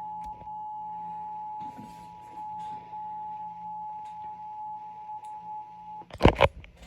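Emergency Alert System two-tone attention signal: two steady tones close in pitch sounding together, marking the start of an emergency alert. It stops about six seconds in, followed by a loud, brief burst of noise.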